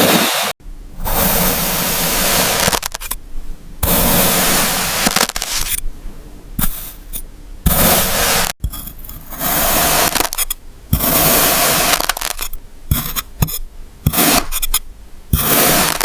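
A blade slicing through kinetic sand in repeated strokes, each a second or two of close, gritty scraping hiss as the packed sand is cut and crumbles, with short pauses between strokes.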